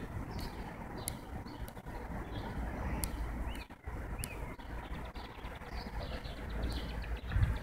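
Small birds chirping now and then, with a couple of short rising-and-falling calls near the middle, over a low steady rumble.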